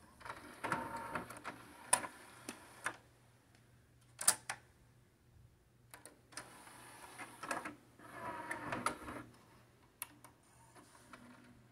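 Pioneer CLD-V850 LaserDisc player's motorised disc tray whirring and rattling as it slides open, a sharp clack about four seconds in, then the tray whirring shut again, followed by a few small clicks as the mechanism loads the CD.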